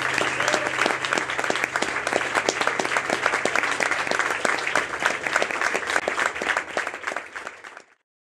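Audience applauding: a dense, steady clatter of clapping hands that fades out quickly near the end.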